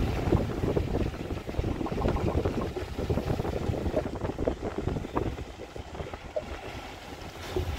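Wind buffeting the microphone: a rough, gusting rumble that eases off about halfway through.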